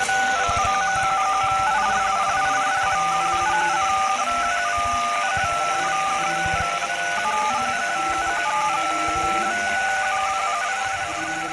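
A long run of telephone touch-tone (DTMF) beeps, each a pair of tones, changing in quick steps over a steady hiss of static. It fades out right at the end.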